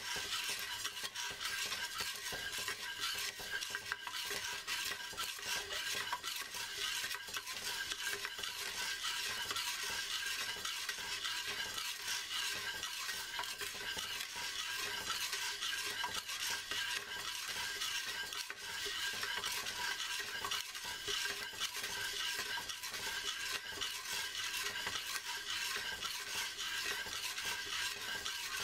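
Coffee beans being stirred as they roast in a ceramic pot: a steady, dense rattle of many small clicks and scrapes that runs without a break.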